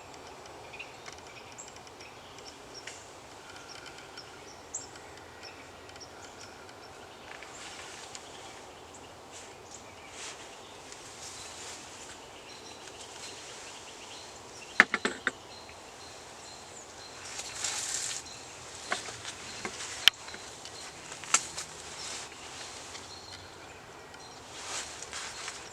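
Quiet outdoor ambience with faint distant bird calls and insect sounds. A few sharp clicks or knocks break it, a short cluster just past the middle and single ones a few seconds later.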